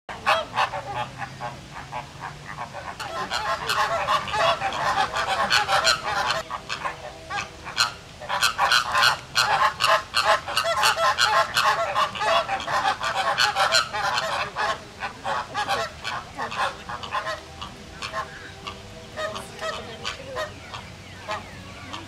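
A flock of flamingos honking over one another in a squabble, many rapid goose-like calls at once. The calling swells to its busiest through the middle and thins out toward the end.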